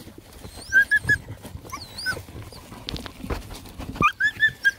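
Hunting dog whining and whimpering in short, high-pitched runs, about a second in and again near the end, with scraping and knocks against rock and wood as it works at quarry hidden in a crevice.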